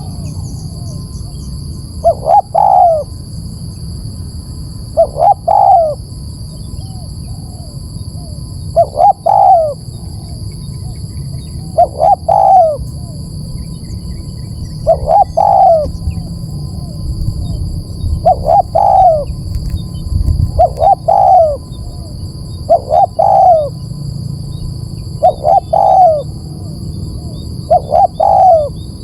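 Spotted dove (tekukur) cooing: a short phrase of a few coo notes, repeated about ten times at intervals of roughly two to three seconds, over a steady low rumble.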